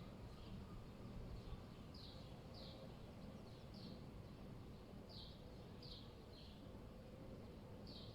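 A small bird chirping faintly and repeatedly, short high chirps that slide downward, coming in loose clusters, over a steady low rumble of city background.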